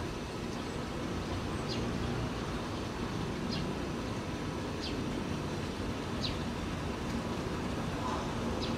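A bird giving short, high chirps that slide downward, repeated about every second and a half, over a steady low background rumble.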